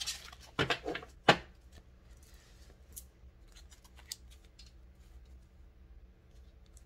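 Tarot cards being handled on a table: a quick run of sharp flicks and snaps in the first second and a half, the loudest near its end, then a few faint ticks.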